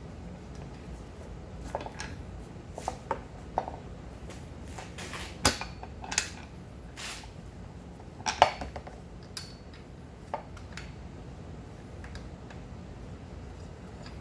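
Scattered metallic clinks and taps of steel M8 bolts and nuts being handled and fitted by hand, with two sharper clanks around the middle.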